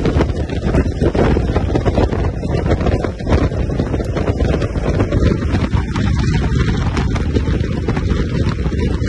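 Heavy wind buffeting on the microphone over a speedboat's outboard motors running at high speed, about 40 mph, with the rush of its wake and spray. Steady throughout.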